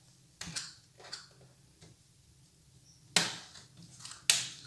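Plastic snap-fit clips of a Lenovo IdeaPad S145 laptop's bottom cover releasing as it is pried with a thin spudger: a few light clicks, then two sharp snaps about a second apart near the end as the cover comes free.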